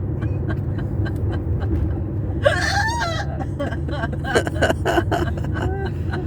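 A person's hiccups: one sharp, drawn-out hiccup with a pitched cry about two and a half seconds in, then four or five short hiccups in quick succession. Under them runs the steady low rumble of a car cabin on the road.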